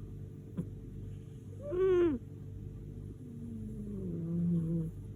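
A sleeping cat snoring with a pitched, whistling tone. A short snore falls in pitch about two seconds in, then a longer, lower one starts at about three seconds and runs almost to the end.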